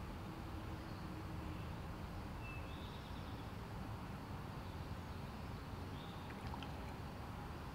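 Woodland streamside ambience: a steady low rush with a few short, high bird chirps scattered through it.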